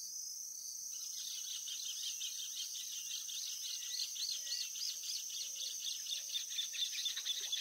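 Insects droning steadily at a high pitch, joined about a second in by rapid, evenly repeated high chirps, with a few faint low calls underneath.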